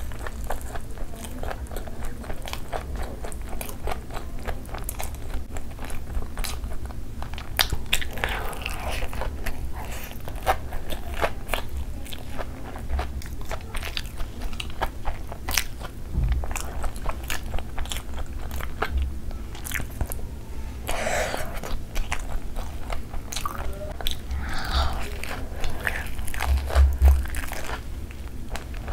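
Close-up eating sounds: biting and chewing through a crumb-coated potato mozzarella cheese ball, with many short crisp crunches throughout. A few dull thumps come in between, the strongest near the end.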